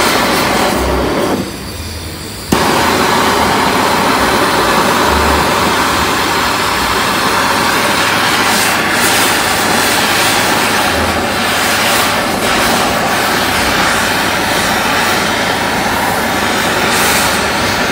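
Hand-held MAP gas torch burning with a steady rushing hiss as its flame heats a lower control arm bush housing, to break the glue seal so the bush presses out more easily. About two seconds in the hiss briefly drops away, then comes back suddenly.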